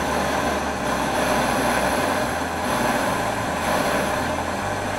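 Daiso one-touch gas torch on a CB butane canister burning with a hissing jet of flame, its level wavering a little. The gas is not burning stably, which the user thinks may be down to the brand-new canister.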